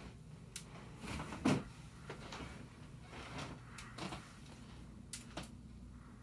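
Hunter Original ceiling fan with custom 46-inch blades running, a steady low hum, with a scatter of irregular clicks and knocks over it, the loudest about a second and a half in.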